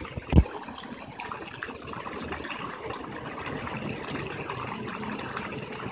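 Steady splashing hiss of a dolphin spray fountain's water jet falling into a shallow kiddie pool, with one short, loud thump about half a second in.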